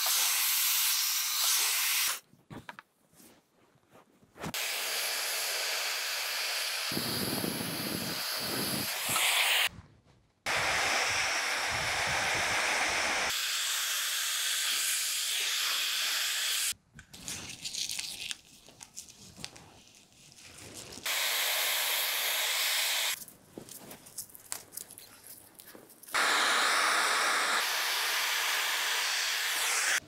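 Laifen Swift high-speed brushless hair dryer blowing on hair held on a round brush: a steady rushing hiss that cuts off and comes back abruptly several times, with quieter stretches of scattered small clicks in between.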